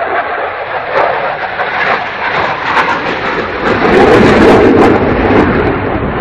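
Jet aircraft engine noise, a continuous rushing roar that swells to its loudest about four seconds in as a fighter jet flies through.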